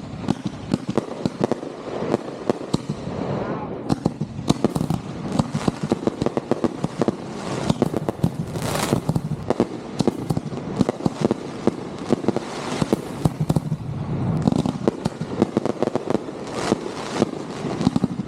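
Consumer fireworks going off in a rapid, continuous barrage: a dense run of sharp bangs and crackling pops, several a second, over a low rumble.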